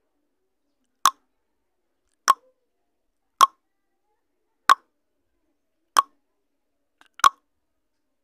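Countdown timer sound effect: a short, sharp tick repeating evenly about every 1.25 seconds, six ticks in all, with silence between.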